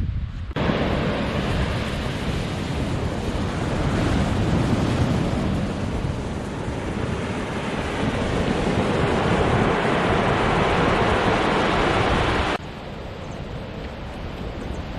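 Ocean surf washing onto the shore, a loud steady rush that swells twice, with wind buffeting the microphone. It cuts off abruptly near the end, leaving a quieter low rumble.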